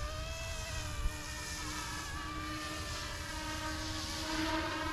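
YXZNRC F09 Black Hawk RC helicopter's electric motor and rotors whining in flight, the pitch wavering as the throttle changes and growing louder near the end. A brief thump about a second in.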